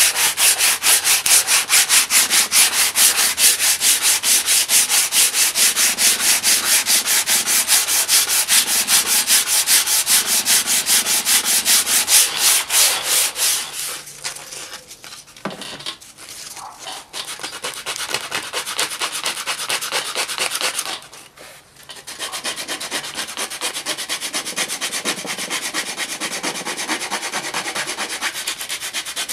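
Wood rasp scraping the bark off a rattan cane in quick back-and-forth strokes, about four a second. The rasping breaks off briefly about halfway through and again about two-thirds in, and then goes on with lighter strokes.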